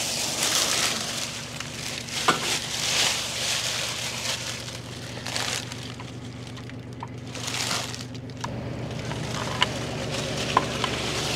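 Scraping and rustling of hands-on work with a measuring tool at a truck's rear axle, with a few sharp clicks, over a steady low mechanical hum.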